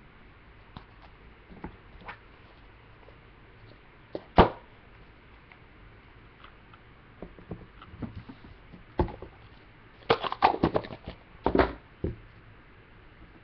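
Trading cards and their small cardboard box being handled and set down on a tabletop: light taps and rustles, one sharp click about four seconds in, and a quick run of clicks and taps near the end.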